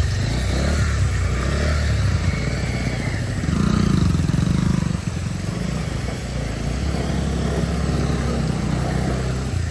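Motorcycle engines running at low speed over a rough muddy, rocky track. The engine note grows louder about three and a half seconds in and drops back about five seconds in.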